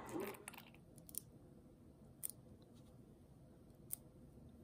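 Quiet kitchen room tone broken by a few faint, sharp clicks and taps of utensils, four or five spread over the few seconds, as a gold measuring spoon and a ketchup squeeze bottle are handled.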